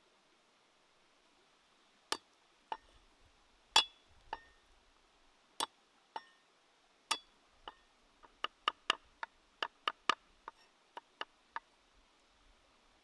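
Kitchen knife striking a wooden chopping board while garlic is cut: a few sharp single knocks, the loudest about four seconds in, then a quicker run of chopping strokes, about three a second, from about eight seconds in as the garlic is minced.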